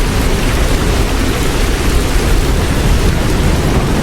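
Heavy hail and rain pounding down in a violent thunderstorm: a loud, steady, dense rushing noise with a strong low rumble.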